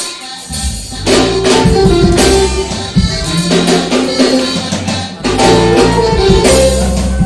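Live worship band starting a song: it comes in about half a second in and plays on with a steady bass line and drum kit.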